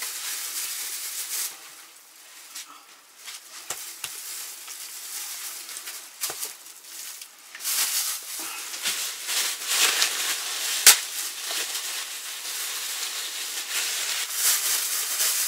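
Thin plastic food bags rustling and crinkling as pieces of salted pork fat are packed into them, with scattered clicks and one sharp click a little before the last third.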